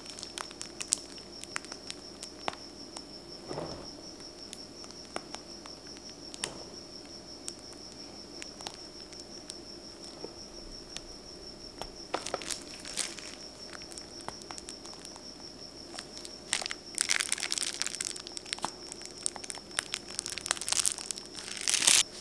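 A piping bag of cream crinkles and crackles as it is squeezed and dollops are piped, with scattered small clicks and denser crinkling about halfway through and again over the last five seconds. A faint, steady, high-pitched whine runs underneath.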